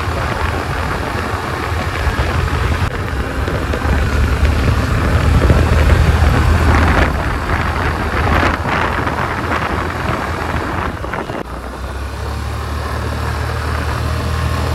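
Wind buffeting a helmet-mounted microphone during a two-wheeler ride, a heavy low rumble with road and engine noise under it. It is loudest about halfway through and eases for a moment about three quarters of the way in.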